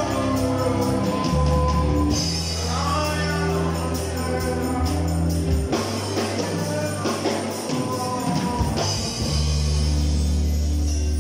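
Live church worship band playing with singing: acoustic guitars and keyboard chords over sustained bass notes, with light percussion. The deep bass drops out for a few seconds midway, then returns.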